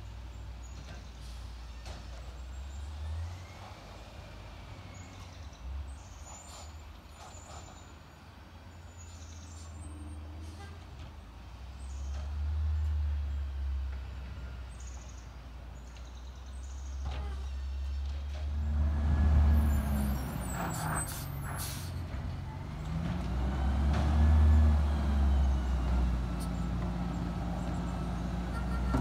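Labrie garbage truck's engine running with a low rumble that grows louder, revving up twice in the second half, with a short hiss of air brakes about two-thirds of the way in.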